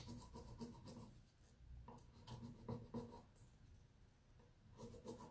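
Faint scratchy rubbing of a plastic applicator over a rub-on transfer's backing sheet on a wooden drawer side, burnishing the transfer down in short groups of strokes.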